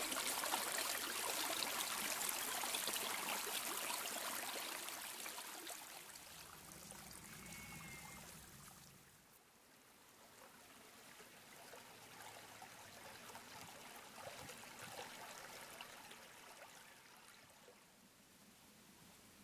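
A small stream splashing and trickling over stones, loud at first, then fading away over the next few seconds until only a faint steady hiss remains from about nine seconds in.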